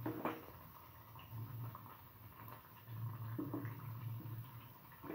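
Potato and corn flour patties shallow-frying in hot oil: a steady sizzle with scattered small pops and crackles, over a low hum.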